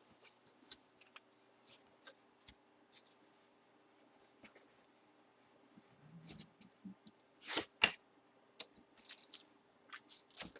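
Faint rustling and scattered clicks of hands opening a sealed box and handling its packaging, with two sharp snaps a little over seven seconds in.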